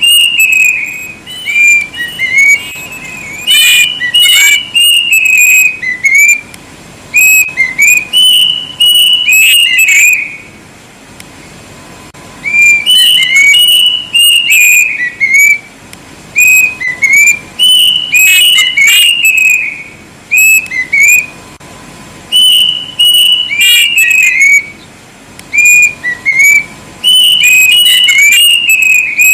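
Plaintive cuckoo (kedasih) singing loudly: repeated phrases of short, clear down-slurred whistles that step down in pitch, a new phrase every few seconds.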